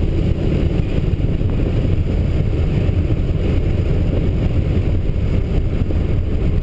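Cabin noise of a turbocharged Ford Probe GT on the move: its 2.5-litre KL V6 engine and road noise make a steady low rumble at an even pitch, with no revving up or down.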